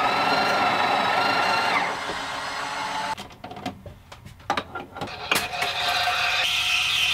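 Home espresso machine in use: a motor runs with a steady whine for about two seconds, then comes a run of clicks and knocks, and from about five seconds in a steady hiss with a high whine.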